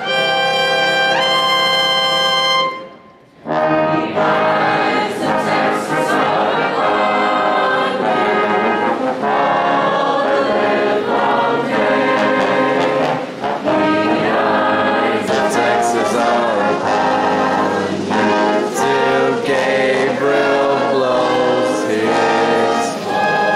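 Live brass ensemble playing: a held chord that stops about three seconds in, a brief pause, then a steady tune.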